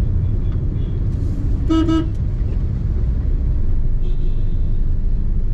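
Steady low rumble of a car driving, heard from inside the cabin, with one short vehicle horn toot just under two seconds in.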